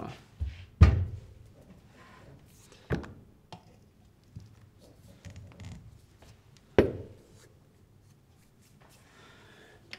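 Espresso portafilter and tamper being handled while the ground coffee is tamped: a few separate knocks and clacks of metal on the counter, the loudest about a second in and others about three and seven seconds in, with light handling noise between.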